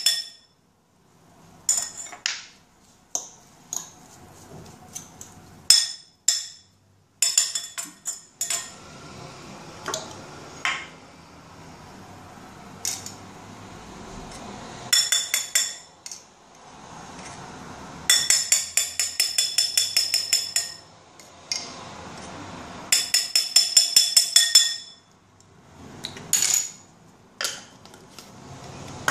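Metal fork tines clinking and scraping against a ceramic plate while mixing shredded chicken, with scattered single clinks and several fast runs of about four clinks a second.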